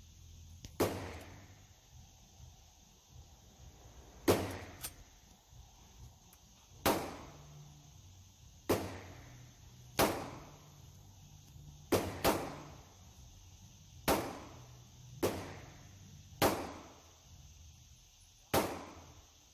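Single gunshots echoing in an indoor shooting range, about a dozen at uneven intervals of one to two seconds, each with a short reverberant tail. Some come from neighbouring lanes, since one is heard while the shooter is still loading his magazine by hand.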